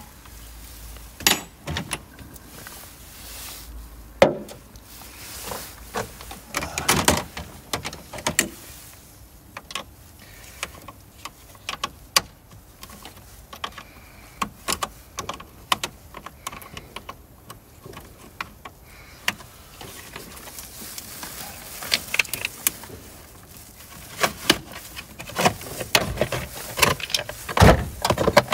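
Hands and tools working on a car: scattered clicks, knocks and clanks, with a sharp click about four seconds in and a heavier thump near the end.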